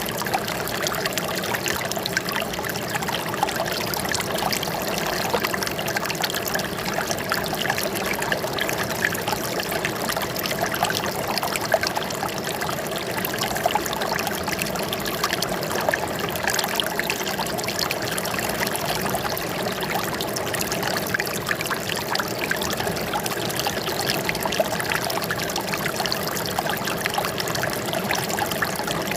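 Running water trickling and splashing steadily, with no change in the flow.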